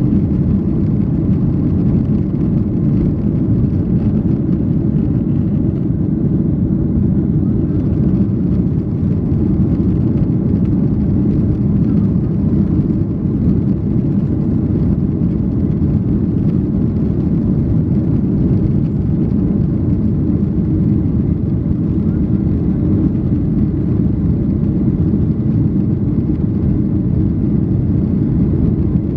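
Cabin noise in a Boeing 737-800 climbing after takeoff: a steady, loud, low rumble from its CFM56-7B engines and the rushing airflow.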